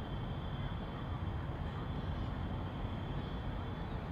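Steady outdoor ambience: a low rumble with a thin high whine held at one pitch above it.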